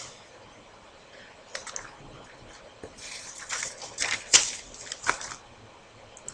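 Sheets of paper being handled and shuffled: a short rustle about a second and a half in, then a longer stretch of rustling and crackling from about three seconds in, with a sharp crackle midway.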